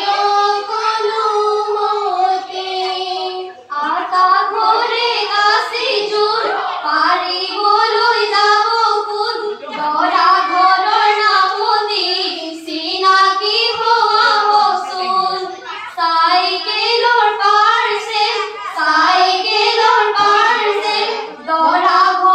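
A group of teenage girls singing an Assamese biya naam (traditional wedding song) together through stage microphones, with no instruments, in sung phrases of several seconds with short breaks between them.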